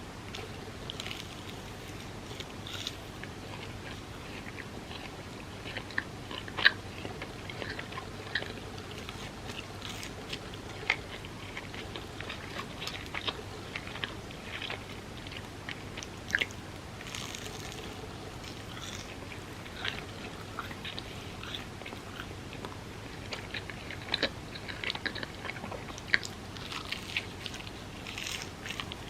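Close-up eating sounds: a person chewing soft food, with scattered sharp wet mouth clicks and a few louder bites, over a faint steady low hum.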